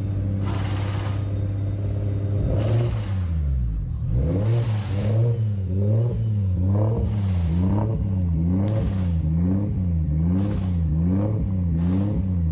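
Nissan Skyline's engine running at idle, steady at first; from about two and a half seconds in, its revs rise and fall over and over, roughly every three-quarters of a second. This is an unstable, hunting idle on a newly installed 'January 5.1' engine computer that is still being tuned.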